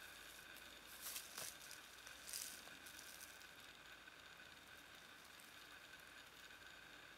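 Near silence, with a few faint rustles about a second in and again near two and a half seconds: a tent stake and its guy line being handled in dry leaf litter.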